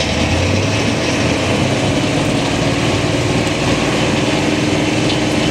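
Belt-driven sawmill running off a Fowler steam traction engine's flywheel: a steady mechanical clatter, with a humming tone that comes up about halfway through.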